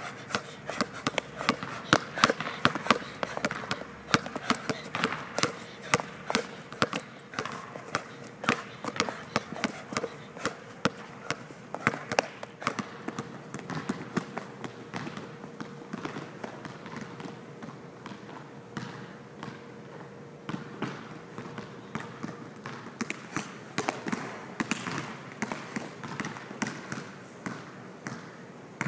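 Basketball being dribbled hard and fast on an indoor court floor: a steady run of sharp bounces, about two to three a second, during a ball-handling drill.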